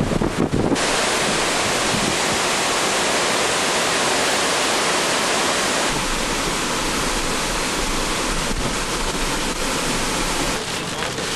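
Hurricane wind and wind-driven rain: a loud, steady rushing hiss. Gusts buffet the microphone in the first second before the hiss takes over.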